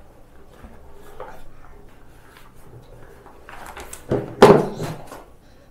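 Handling noise from a silicone baby bib being pulled off over a plastic high chair, with a cluster of loud knocks and clatter about four seconds in; faint room tone before it.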